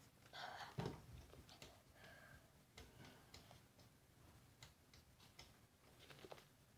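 Near silence, with faint scattered ticks and a brief rustle ending in a soft knock about a second in.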